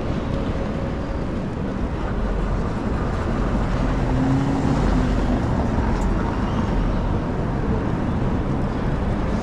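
City street traffic: a steady noise of vehicles running past, swelling a few seconds in as one engine passes close with a low hum.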